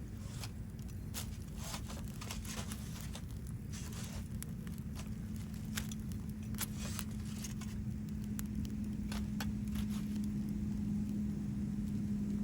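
Wood fire crackling, with frequent sharp pops and snaps throughout, over a low steady hum that grows louder in the second half.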